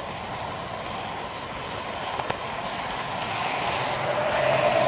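N-gauge model train running on its track, heard from a camera riding aboard: a steady whir of the small electric motor and wheels, with a couple of clicks about two seconds in. It gets louder near the end.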